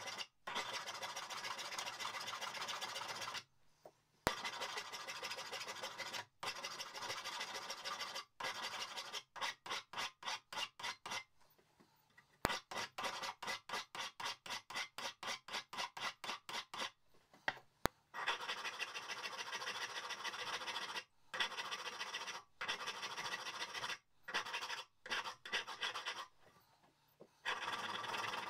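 Hand file rasping back and forth across the steel peen of an old hammer head held in a vise. Long runs of strokes are broken by short pauses, with a middle stretch of quicker, separate strokes at about four a second and a few sharp ticks.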